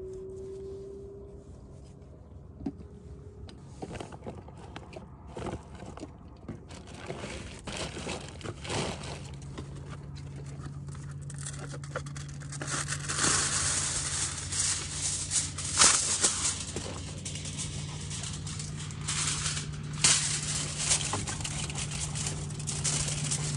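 Aluminium foil pulled off a Reynolds Wrap roll and crinkling as it is spread out on a wooden cutting board, loudest in the second half with sharp crackles. It follows a few faint knife clicks on the board.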